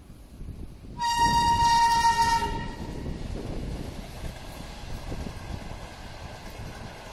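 Electric locomotive horn sounding one steady, high blast of about a second and a half, starting about a second in, followed by the rumble of the locomotive and passenger coaches rolling past.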